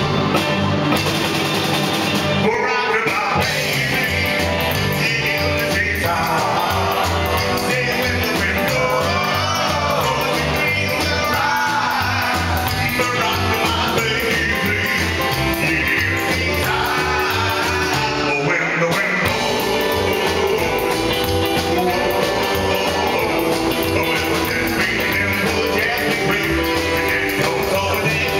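Live rock and roll band playing: a man singing over electric guitar, saxophone and drums with a steady beat.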